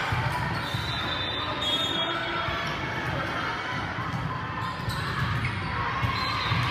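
Crowd murmur echoing in a gymnasium during a volleyball game, with thumps of the ball on the floor and on players' hands.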